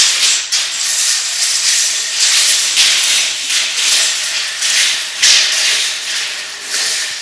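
Steel tape measure blades rattling and scraping along the floor, a steady hissing rattle that surges every half second or so.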